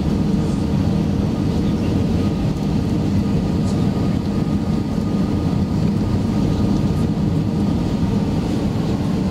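Cabin noise inside an Airbus A321-211 taxiing, its CFM56-5B turbofans running at low taxi power: a steady hum with a few held tones.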